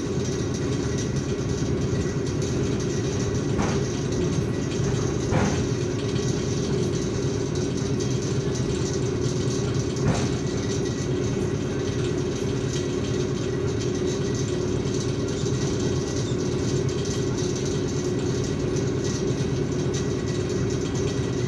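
Steady interior rumble of an ER9M electric multiple unit's passenger car, with a few faint brief knocks in the first half.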